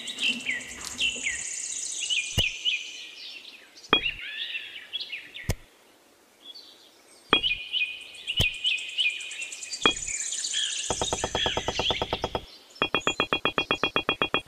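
Birds chirping, broken by about six sharp clicks as tiny clay bricks are tipped out and set down. Near the end a fast, evenly pulsing electronic music beat comes in.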